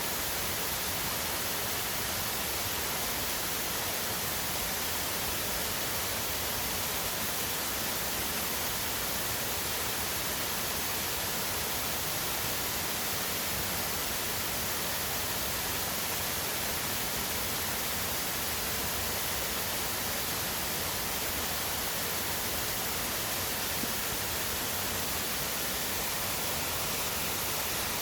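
Waterfall: water pouring over rocks, a steady, unchanging rush.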